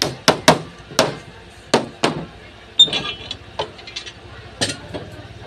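A run of sharp knocks, about six in two seconds, from a hammer tapping at the edge of a plywood sheet and its metal straightedge clamp. Then a ringing metal clatter and a few lighter knocks as the long clamp bar is handled and lifted off the board.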